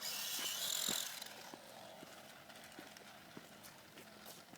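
The small electric motor of a remote-control dirt bike whirs briefly with a high whine for about the first second, then stops, leaving only faint scattered clicks.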